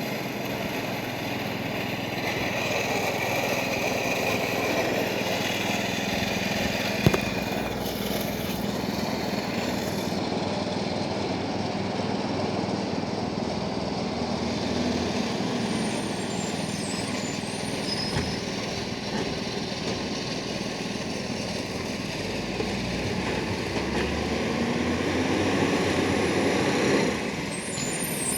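Iveco ACCO side-loader garbage truck running steadily, with a single sharp knock about a quarter of the way through. Its sound swells near the end, then drops off suddenly.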